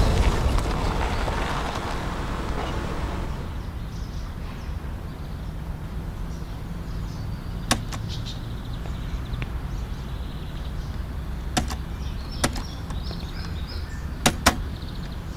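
A car's engine running low and steady as the sedan pulls up and stops. Sharp clicks come about halfway through and several more near the end, fitting the car's doors being opened and shut.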